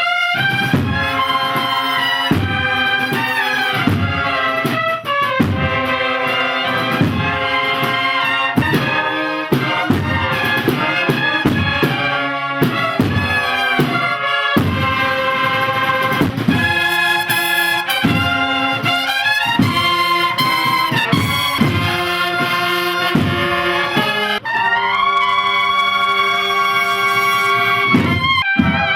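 A cornet and drum band playing a processional march: bright cornets carry the melody over a regular drum beat, then hold a long chord near the end.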